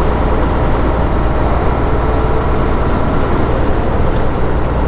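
Semi-truck's diesel engine and tyre noise from inside the cab while driving along a town road, a steady low drone with no changes.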